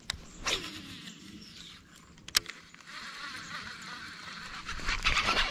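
A baitcasting rod swung with a quick swish just after a click, then another sharp click from the reel about halfway through, followed by the baitcasting reel being wound in with a steady fine rattle.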